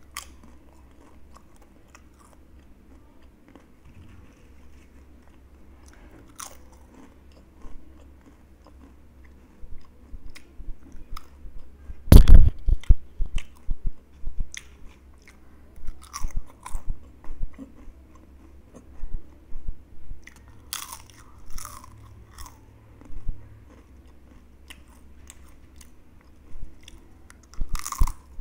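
Close-up biting and chewing of crunchy wavy potato chips: soft chewing and small clicks at first, then irregular sharp crunches with short quiet gaps, the loudest crunch about a third of the way in.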